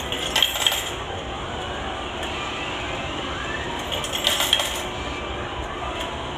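Yen coins being dropped into a claw machine's coin slot: two short bursts of metallic clinking, a few seconds apart, over steady background noise.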